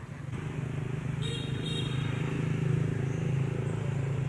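Steady low hum of a running motor engine that comes up about a third of a second in and holds, with a brief higher-pitched sound about a second in.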